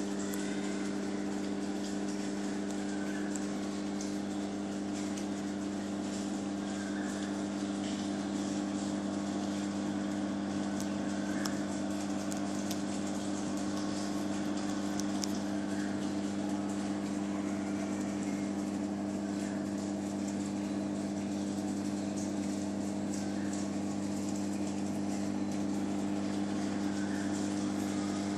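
Steady low electrical hum of reef aquarium pumps running, with a faint fizzing crackle of water. Short faint chirps recur every few seconds.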